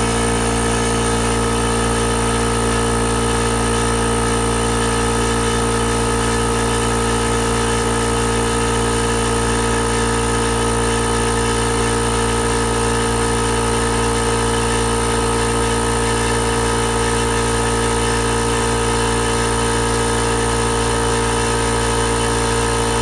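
Ingersoll Rand P1IU-A9 twin-stack portable air compressor, a 2 HP single-stage unit, running steadily and loudly as it pumps its emptied tank up toward full pressure.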